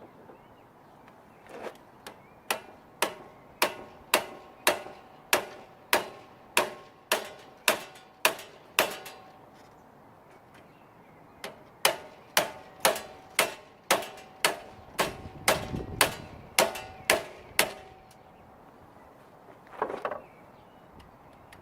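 A hammer striking a steel bicycle U-lock whose lock cylinder has been frozen with inverted canned air, to shatter it: two runs of a dozen or so ringing metal-on-metal blows, about two a second, with a short pause between, then a brief clatter near the end.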